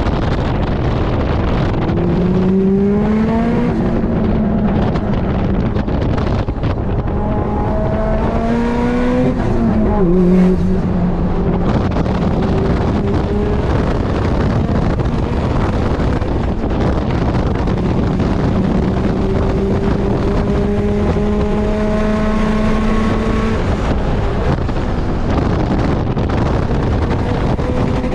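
Built 2019 Subaru WRX STI's turbocharged flat-four engine under hard driving, heard from inside the cabin over steady road and wind noise. The engine note climbs twice in the first ten seconds, drops sharply about ten seconds in, then holds steady for a long stretch before falling away.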